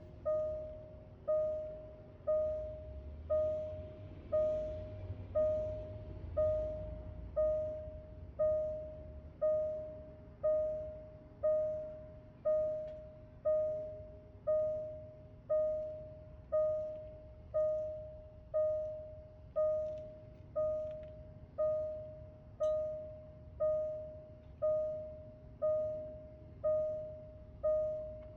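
Jaguar E-Pace's warning chime sounding over and over, one decaying electronic bong about once a second, while the car's modules are being reprogrammed; it stops at the very end.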